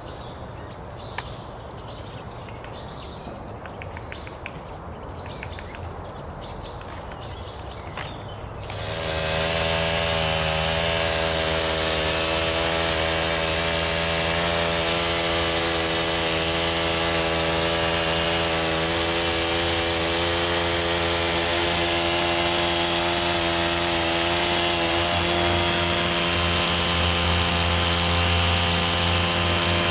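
Birds chirping over a low rumble, then, about nine seconds in, the petrol engine of a STIHL long-reach pole hedge trimmer comes in loud and runs steadily at high speed as the blades cut the hedge.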